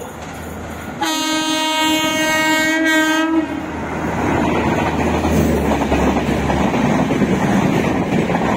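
WAP4 electric locomotive sounding its horn in one long blast starting about a second in, then the locomotive and its coaches rolling past at speed with steady wheel-on-rail noise and clickety-clack as they enter the station.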